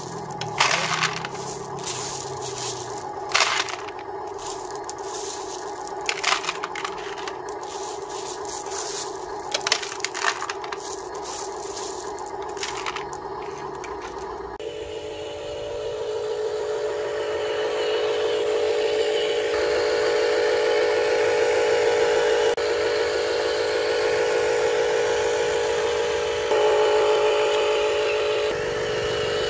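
Gravel stones dropped by hand into the metal dump bed of a Huina 1573 RC dump truck, clattering in a string of sharp clicks. About halfway through the sound gives way to the RC truck running as a steady, slightly rising drone.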